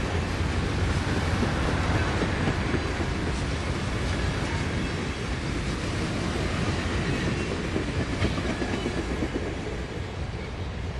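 Bilevel passenger train cars rolling past at speed, a steady rush of wheels on rail, easing slightly near the end as the last car goes by.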